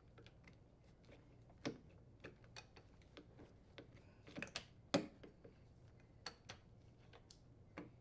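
Faint, scattered clicks and knocks of plastic and metal as a Samsung refrigerator's upper door hinge is worked free of its bracket and its wires and water line; the two loudest knocks come about four and a half and five seconds in.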